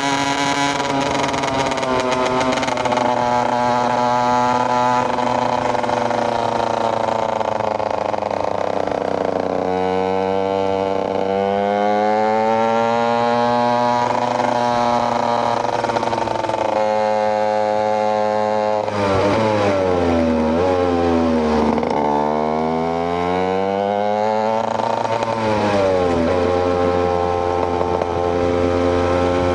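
KTM EXC 125 single-cylinder two-stroke motorcycle engine running under riding, its revs climbing and falling over and over. Partway through the revs drop and pick up in several quick swoops before steadying again.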